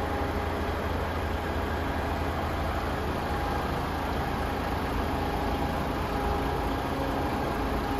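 Tractor unit's Paccar 460 hp diesel engine idling steadily: an even low hum with a faint constant whine above it.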